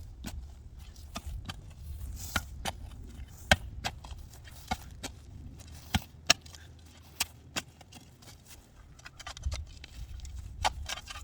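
A digging tool striking hard, rocky soil while a tree hole is dug, in repeated sharp knocks at an uneven pace, a little more than one a second. The ground is hard as concrete and full of rock.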